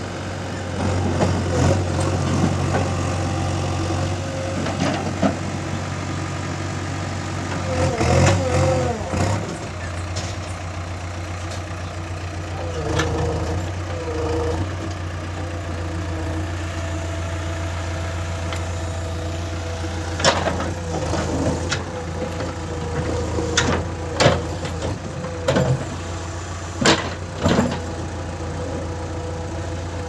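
JCB 3DX backhoe loader's diesel engine running steadily at idle, with a low hum and a mid-pitched tone that wavers briefly a few times. In the second half there is a run of sharp metallic clanks.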